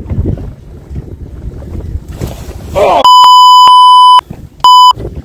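Wind rumble on the microphone aboard a small boat, then a loud, steady censor bleep about three seconds in that lasts just over a second, followed by a second short bleep. The bleeps are dubbed over a spoken word while a fish is being fought.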